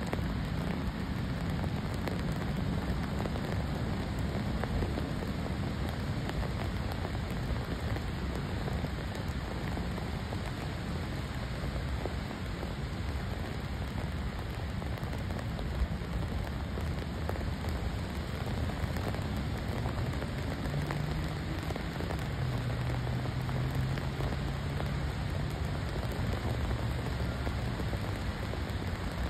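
Steady rain falling on a wet paved path, an even hiss. A faint low hum joins for several seconds about two-thirds of the way through.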